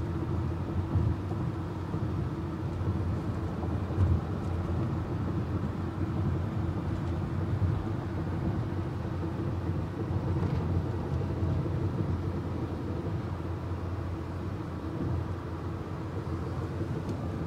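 Steady low rumble of a car's tyres and engine heard from inside the cabin while driving on a freeway.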